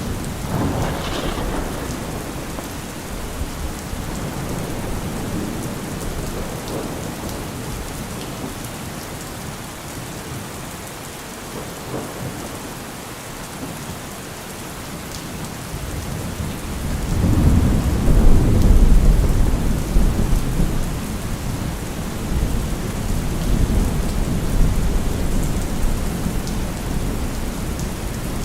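Thunderstorm: steady rain falling, with thunder rumbling. A rumble comes in the first couple of seconds, and a louder, longer deep rumble rolls in about two-thirds of the way through.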